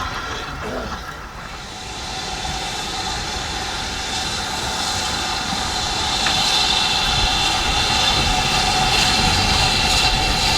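Train running on the line, its steady rumble and hum growing gradually louder as it approaches.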